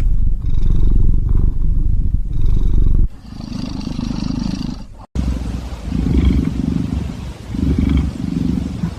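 A Scottish Fold cat snoring loudly, a deep tractor-like rumble. It is steady for about three seconds, drops back, breaks off briefly, then comes in separate rumbling breaths about a second long.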